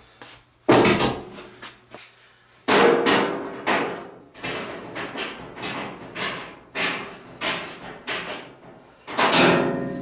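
Knocks and clanks on a clothes dryer's sheet-metal cabinet and drum as it is worked on with the top raised. Three loud bangs with a ringing tail come about a second in, near three seconds and about nine seconds in, with lighter knocks roughly every half second between them.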